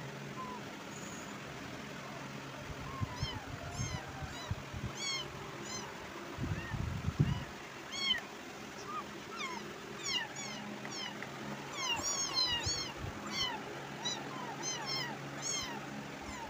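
Kittens mewing in many short, high-pitched cries, sparse at first and coming thick and fast from about three seconds in, with a few low bumps around the middle.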